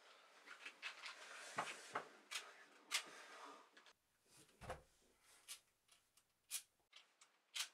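Quiet small room with faint rustling and irregular small clicks and taps, and one soft thud about four and a half seconds in.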